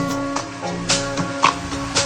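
Background music: held chords with sharp percussive hits about every half second.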